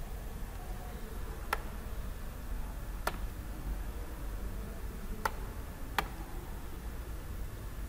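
Four sharp computer mouse clicks, spaced one to two seconds apart, over a steady low hum.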